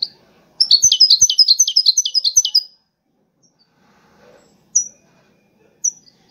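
European goldfinch singing in its cage: a fast, bright run of about ten chirping notes lasting about two seconds, then two single short call notes near the end.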